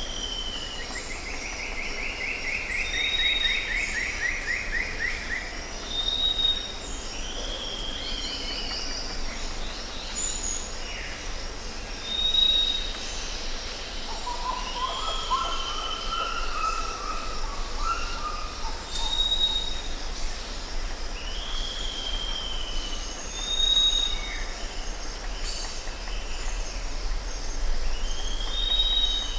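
Jungle ambience: several birds calling over and over, short clear whistles and down-slurred notes with a descending trill near the start and a lower warbling call midway, over a steady high insect drone and a faint low rumble.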